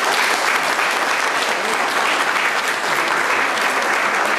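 Audience of about a hundred people applauding steadily, a dense even clatter of many hands clapping.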